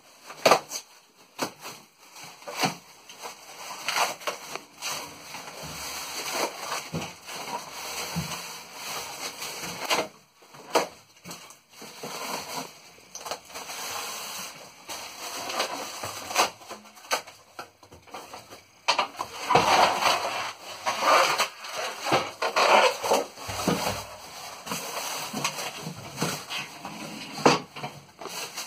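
Thin plastic wrapping rustling and crinkling in irregular bursts as it is handled and pulled off a boxed thickness planer, with a few sharp knocks; loudest about two-thirds of the way through.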